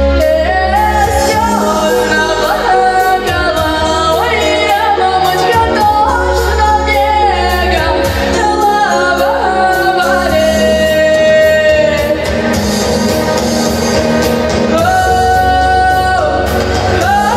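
A girl singing a Russian pop song into a microphone over instrumental backing, holding long notes with vibrato about ten seconds in and again near the end.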